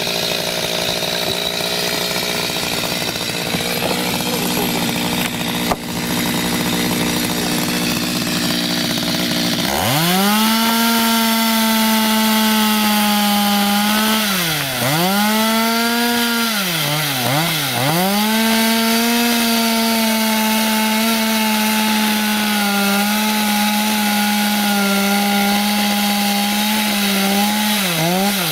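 Chainsaw cutting through wooden piles. It runs steadily at first, then about ten seconds in revs sharply up to full speed and bites into the wood, bogging down and recovering three times. Near the end it winds down.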